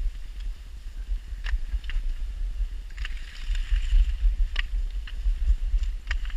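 Wind rumble on the camera microphone, with short crisp crunches on packed snow coming irregularly, about one to two a second.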